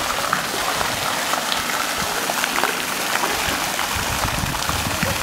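Fountain jets spraying and water splashing down into a round pool, a steady hiss of falling water.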